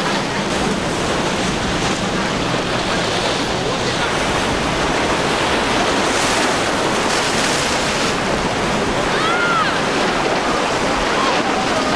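Steady rush of churning water and surf as powerboats run through rough inlet waves and throw up spray, with wind on the microphone.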